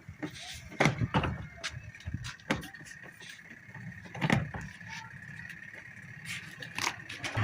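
Scattered light clicks and knocks, irregularly spaced, over a faint steady high tone.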